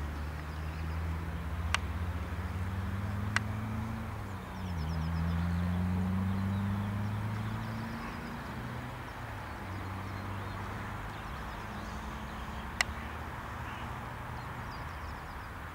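Diesel engine of a Unimat 4S track tamping machine running as it approaches, its pitch climbing, dipping briefly about four seconds in, climbing again and then settling lower and quieter. Three sharp clicks stand out, near the start, a few seconds later and near the end, with faint birdsong in the background.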